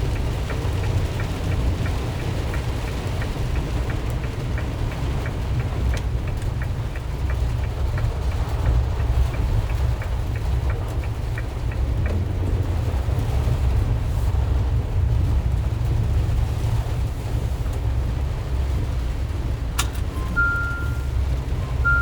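A Ram ProMaster van's 3.6-litre V6 and road noise as it drives on wet roads, a steady low rumble, with faint regular ticking in the first several seconds. Near the end a click is followed by a few short electronic beeps.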